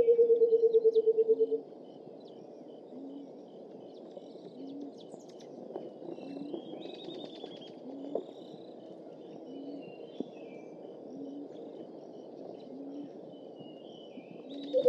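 White-browed coucal's bubbling call: a fast run of low hooting notes that falls slightly in pitch. It lasts about a second and a half at the start and begins again at the very end. Between the calls a faint low note repeats about once a second, under light chirping from small birds.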